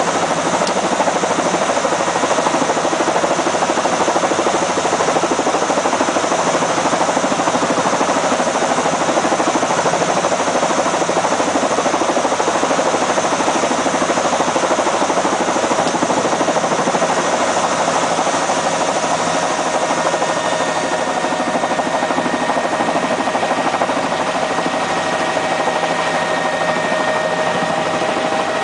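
Helicopter running, a steady, dense rotor and engine noise; in the last third, a steady whine comes up out of the noise and grows stronger.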